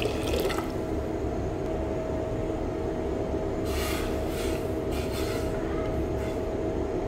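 Steady mechanical hum with a low rumble, broken by a few short hissing scrapes about four to five and a half seconds in.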